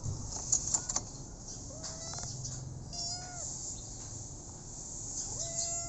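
A few light metal clicks from the latch of a plastic pet carrier's wire door being opened, followed by a kitten meowing three times, each a drawn-out high call of about half a second.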